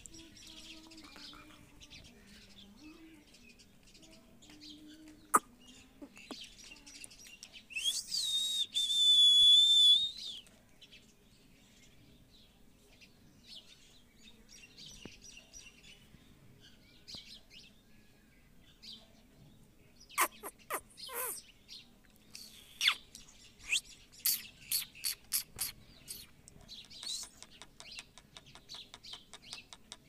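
Green ring-necked parakeet calling in short high chirps, with one loud held screech about eight seconds in that lasts a couple of seconds, and a quick run of sharp clicking chirps in the last third.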